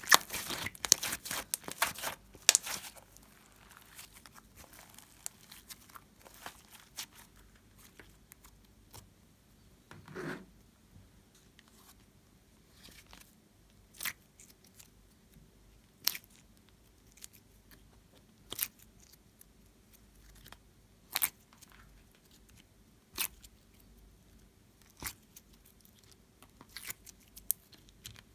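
Hands squeezing and pressing soft slime, with fast crackling pops of trapped air for the first few seconds. Then a soft thump, and single sharp clicking pops about every two seconds.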